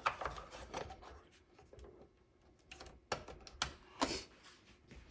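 Scattered light clicks and knocks of the RC dump truck's battery and battery compartment being handled, a few sharp taps with quiet gaps between.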